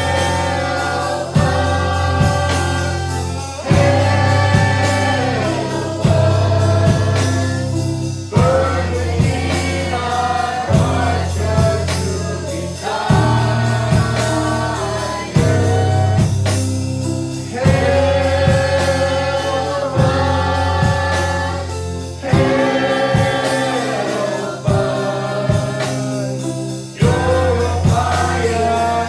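Gospel worship music: voices singing long held notes over instrumental accompaniment with a strong bass line.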